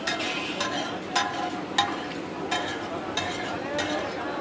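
Metal spatula scraping and clanking against a hot pan as spiced meat is stir-fried, about one stroke every two-thirds of a second over the sizzle of frying.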